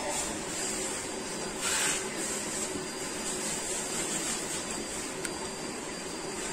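Steady rush of flowing stream water, with one short, louder hiss about two seconds in.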